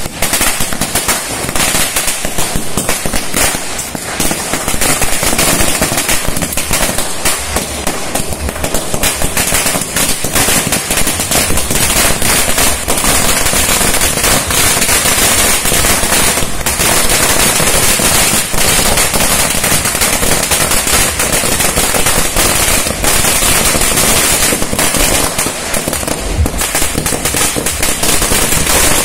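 A 5000-wala ladi, a long chain of small firecrackers, going off continuously: a dense, unbroken rattle of bangs.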